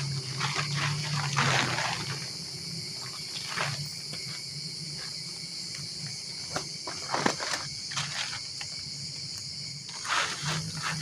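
Steady high-pitched insect chorus, with scattered clicks and rustles of something being handled nearby and a low pulsing hum near the start and again near the end.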